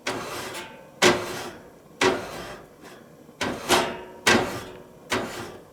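Short, sharp scraping strokes on metal cookware being cleaned off, about one a second with two quick ones near the end, each fading with a brief metallic ring.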